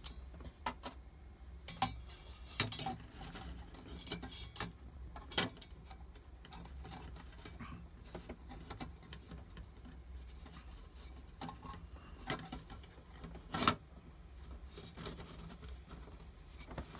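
Scattered metallic clicks, clinks and knocks as a stainless steel windscreen/pot stand is handled and fitted around a PT-2 gasoline pressure stove, with a louder knock about five seconds in and another near the end.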